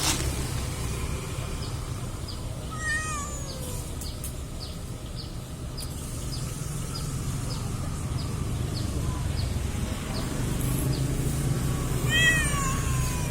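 Stray cat meowing twice: one short falling meow about three seconds in and another near the end. Underneath are a steady low rumble and a faint regular ticking about twice a second.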